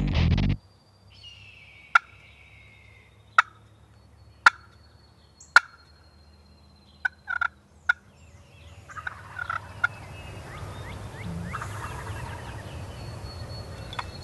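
Wild turkey gobbling in the spring woods: a rapid rattling run of notes starts about nine seconds in. Before it comes a series of sharp single clicks.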